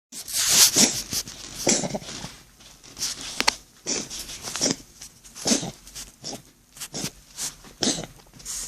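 A domestic cat coughing in a run of about a dozen short, noisy coughs, roughly one a second. The cough comes from an enlarged heart pressing against the cat's sternum, as diagnosed by a veterinarian.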